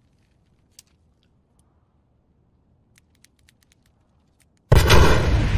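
Near silence with a few faint clicks, then, near the end, a sudden loud burst of harsh, crackling noise that cuts off abruptly.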